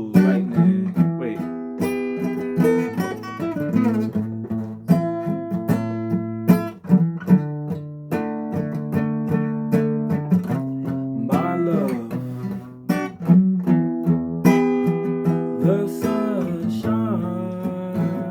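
Acoustic guitar strummed in chords, each strum struck sharply and left ringing, in an uneven rhythm.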